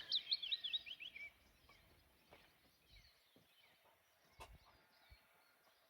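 A small songbird singing a phrase of quick, high notes that step down in pitch, ending about a second in. Then a quiet outdoor background with a faint knock about four seconds in.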